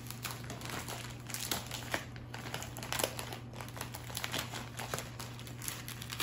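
Plastic packaging of spring roll pastry sheets crinkling as it is handled, a dense, irregular run of crackles.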